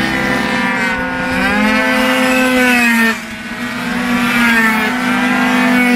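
Racing scooters' small two-stroke engines running at high revs on track, the pitch climbing and falling with the throttle. About three seconds in, the revs and loudness drop briefly, then climb again as a scooter comes closer.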